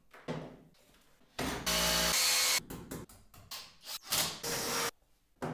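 Short, abruptly cut bursts of power-tool work with clicks of handling between them; about four seconds in, a cordless drill runs briefly, drilling into a wall.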